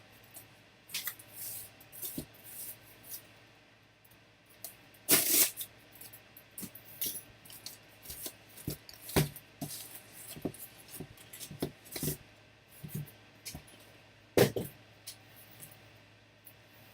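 A trading card box and its wrapping being handled and opened: scattered small clicks and rustles, with two longer, louder rustles, about five seconds in and near the end.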